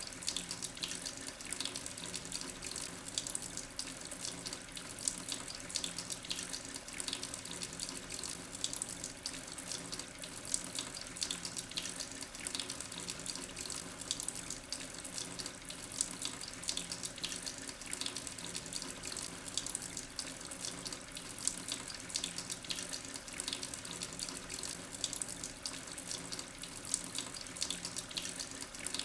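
Water trickling and splashing steadily, a dense, unbroken patter of small splashes.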